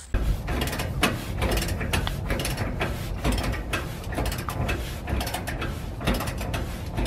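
Socket ratchet wrench clicking in a rapid run as it turns the nut on a sway bar end link.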